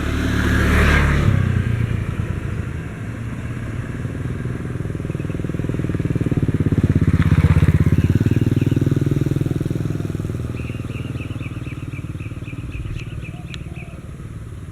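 Two motor vehicles passing close by, one after the other: a rumble that swells and fades about a second in, then a louder one around seven seconds in. A fast run of high ticks comes near the end.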